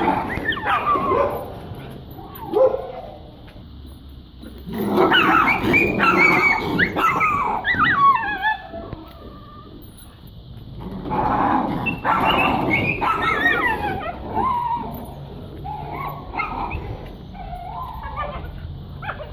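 Dogs yelping and whining in several excited bursts, high cries sliding down in pitch, with quieter stretches between.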